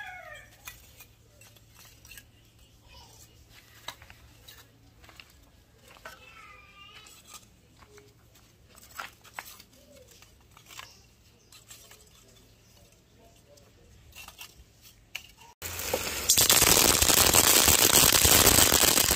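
Lumps of charcoal clicking and knocking against each other as they are stacked around a burning paper towel in a clay coal stove, with light crackling. Near the end the sound cuts to a loud, dense rustling right on the microphone, as of a plastic bag being handled.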